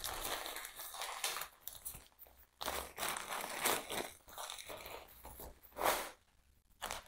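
Paper plant wrapping crinkling and rustling in irregular bursts as it is pulled off a potted plant, loudest about six seconds in, then quieter.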